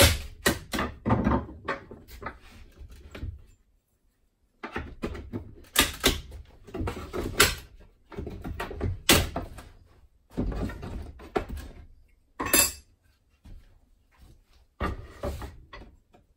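A hammer taps a small flat bar a few quick times, then irregular knocks, cracks and scrapes follow as wooden moldings, held on with brad nails, are pried loose from the box.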